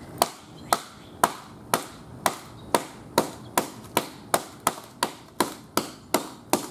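Hammer repeatedly striking an iPad's shattered glass screen on asphalt: a steady run of sharp blows, about two a second, getting slightly quicker toward the end.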